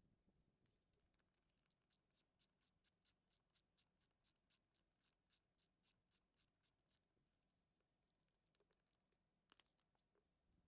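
Faint, even clicking of a hand ratchet turning a socket, about four clicks a second for some five seconds, then a single sharper click near the end.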